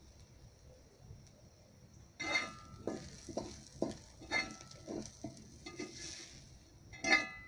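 A metal spoon scraping and clinking against stainless steel cookware as sautéed onions are spooned out, over a faint sizzle. The scrapes start about two seconds in and come irregularly, with a sharper clink near the end.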